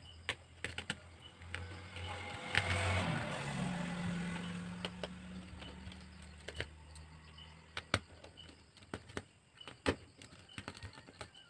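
Small sharp clicks and taps of repair tools handling a phone, scattered throughout. A motor vehicle passes from about two seconds in, its engine note swelling, dropping in pitch and fading away.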